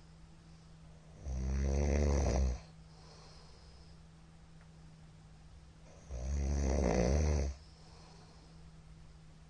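Middle-aged man snoring very loudly: two long snores, each lasting over a second, about five seconds apart. A faint breath hiss follows the first, and a steady low hum runs underneath.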